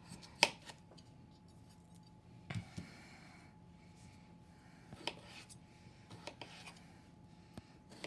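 Kitchen knife cutting through a raw gold potato on a cutting mat. A few sharp knocks of the blade hitting the mat, the loudest about half a second in, with quieter slicing and handling in between.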